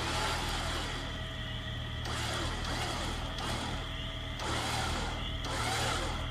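Electric winch on a Jeep pulling a tip-down antenna tower upright, its motor whining in several spurts that start and stop abruptly, over the steady hum of the Jeep's idling engine.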